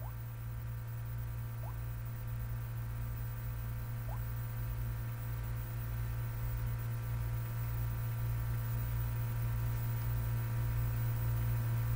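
Steady electrical hum with a buzz of evenly spaced overtones, typical of mains hum picked up in the recording chain, slowly growing a little louder. Three faint short rising chirps sound within the first four seconds.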